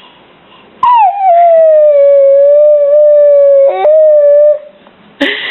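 A dog howling on cue: one long howl that slides down in pitch and then holds steady, with a brief catch and upward flick before a short final stretch.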